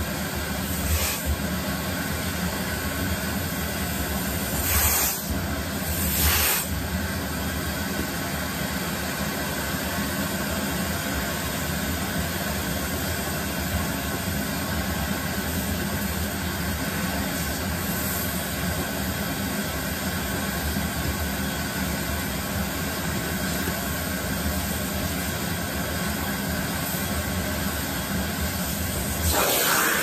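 Canister vacuum cleaner running steadily with its nozzle sucking at a doll's long synthetic hair. There are a few brief louder rushes: about a second in, twice around five to six seconds, and near the end.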